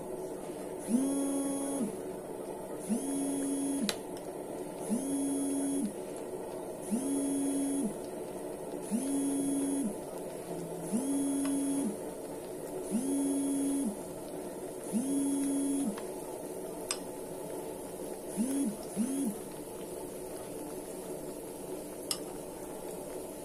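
A low hooting call, each hoot just under a second long, repeating about every two seconds nine times, then two short hoots. Under it, battered banana pieces fry steadily in hot oil, with a few sharp clicks.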